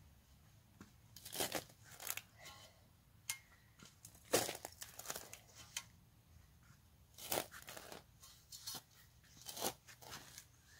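Steel spade cutting into old lawn turf and the soil beneath, as the dead sod and its roots are cut loose. The strokes come one after another at uneven intervals, the sharpest about four and seven seconds in.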